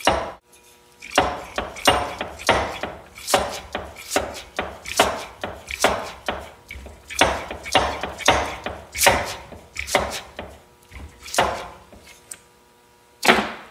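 KYB adjustable shock absorber, its oil and gas charge long gone, being stroked back and forth by hand: a string of short, sharp clacks and puffs, about one or two a second, as air is forced through its adjustable valving. There is a short pause near the end, then one loud stroke.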